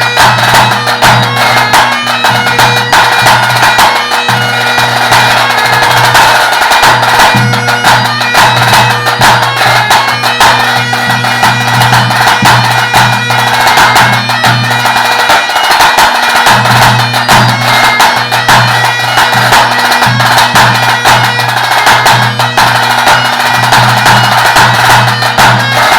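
Great Highland bagpipe playing a tune over its steady drones, with a tenor drum being struck in a busy pattern along with it: a tenor drumming solo accompanied by a piper.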